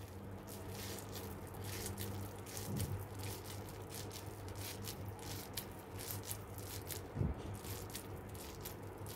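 A wet hand squeezing and pressing warm boondi into laddoos: soft, irregular squishing and crackling of the small fried pearls. A low steady hum sits underneath, with a soft knock about seven seconds in.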